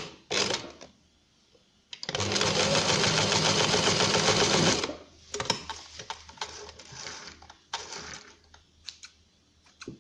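Sewing machine stitching felt: a short burst, then a steady run of about three seconds, followed by scattered light clicks and handling noises.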